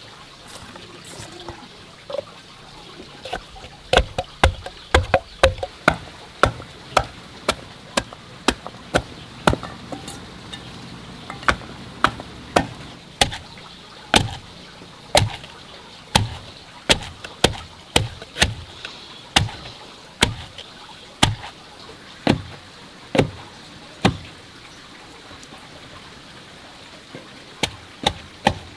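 Bamboo pestle pounding fresh turmeric root in a bamboo-tube mortar: steady dull thuds about two a second, stopping for a few seconds near the end before starting again.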